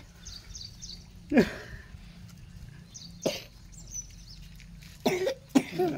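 A person coughs sharply about a second and a half in and again a couple of seconds later, with faint bird chirps in the background.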